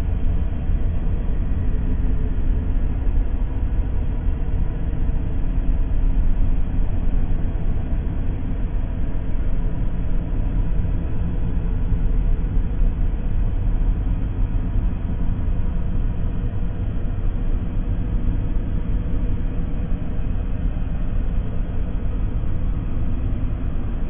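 Sci-fi space planet ambience: a steady, deep rumbling drone with faint high tones held over it and no distinct events.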